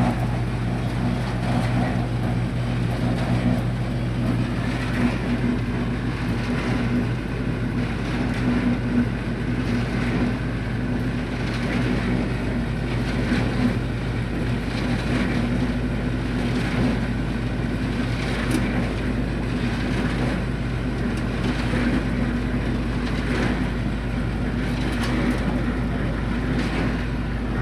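Ready-mix concrete plant machinery running steadily: a constant motor hum over a low rumble, with light irregular rattling.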